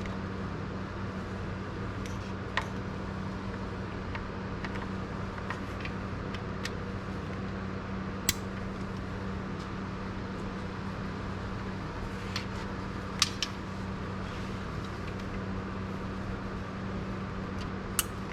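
Steady hum of cooling fans on GPU crypto-mining rigs, with a low droning tone. About half a dozen sharp clicks and taps sound over it.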